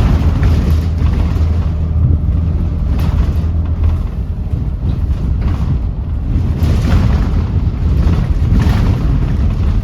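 Volvo D7E diesel engine of a Volvo B7RLE bus running under way with a steady low drone for the first four seconds, after which the drone wavers. Surges of rushing noise come and go every second or two.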